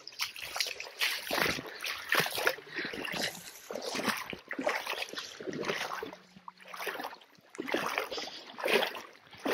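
Shallow lake water splashing and sloshing in short, irregular bursts as a person wades and reaches down into the water to pick up mussels.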